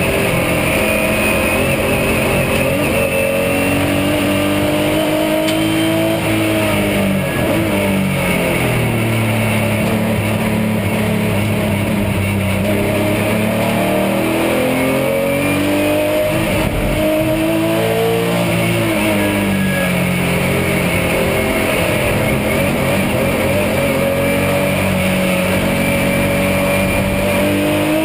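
Porsche 996 GT3 Cup's naturally aspirated flat-six heard from inside the stripped cockpit. Its pitch falls over the first several seconds as the car brakes and downshifts, then climbs under acceleration with one upshift drop about two-thirds of the way in, and keeps rising to the end.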